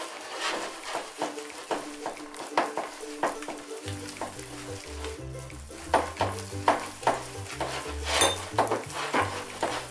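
Egg being stirred into a thick madeleine batter in a bowl: the utensil clicks and scrapes against the bowl in quick, irregular strokes. Background music plays throughout, with a bass line coming in about four seconds in.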